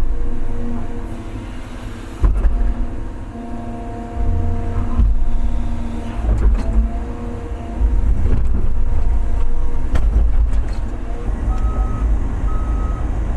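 Large excavator's diesel engine working, its level rising and falling with the load, with a shifting whine and several clunks. Near the end its travel alarm starts beeping about once a second.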